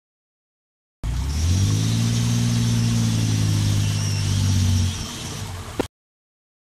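An off-road pickup truck's engine pulling at steady throttle, easing off about four seconds after it starts. The sound begins and ends abruptly, cut off with a brief click, and a faint steady high hiss runs above the engine.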